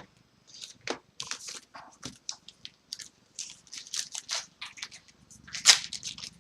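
Hockey trading cards and their pack wrapper being handled: an irregular run of short crinkles and crackles as the pack is worked open and the cards are shuffled, with one louder crackle near the end.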